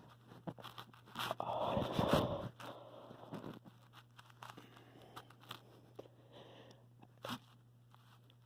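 A stifled, odd sneeze from a person with a head cold: a single noisy burst of breath lasting about a second, starting about a second in. Light clicks and rustles come before and after it.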